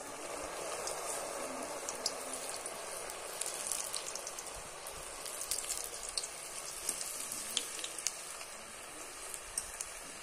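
Mathri (fried flour crackers) deep-frying in hot oil in an iron kadhai: a steady sizzle with frequent scattered crackles and pops.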